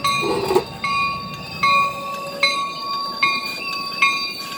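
Locomotive bell ringing at a steady pace, about one strike every 0.8 seconds, each strike ringing on briefly: the warning bell of a train moving at the station.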